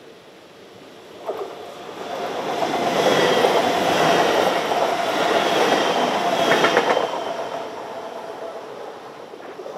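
Passenger train passing over a level crossing at speed: the rush of wheels on rail starts sharply about a second in, is loudest in the middle of the pass, then fades away toward the end.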